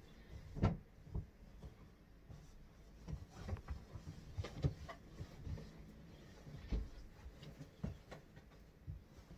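Scattered soft thumps, knocks and rustles of bedding and a bed being handled as a bed is made up, the loudest thump just under a second in.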